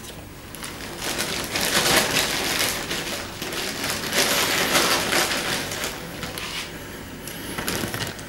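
Crinkling and rustling of plastic packaging being handled, loudest from about a second in to about six seconds in, with a few sharp clicks near the start and end.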